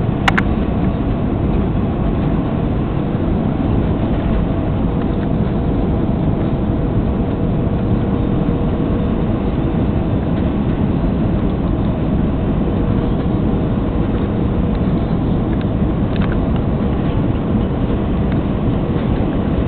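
Steady cabin noise inside an Airbus A320 airliner descending on approach: engine and airflow rumble with a faint steady hum. A brief click comes just after the start.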